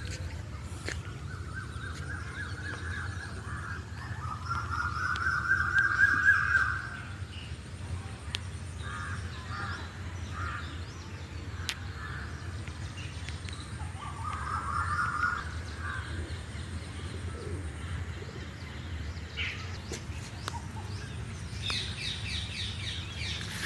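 Birds calling in a series of harsh, rasping calls, the loudest about five to seven seconds in, with fainter chirps near the end. A steady low rumble of wind on the microphone runs underneath.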